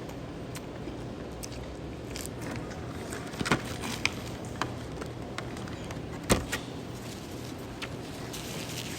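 A person's slow hiccups: a few abrupt hics spaced seconds apart, the sharpest about six seconds in, over steady background noise and small clicks.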